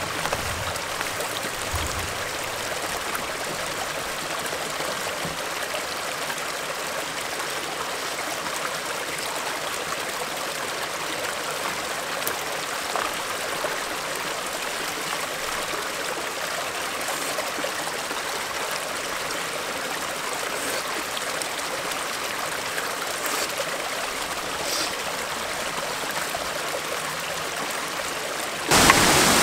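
Steady rushing of a stream, an even hiss of running water. Near the end it switches abruptly to the louder rush of whitewater.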